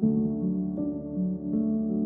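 Slow, gentle instrumental background music: sustained notes that change about every half second, with a plucked, harp-like sound.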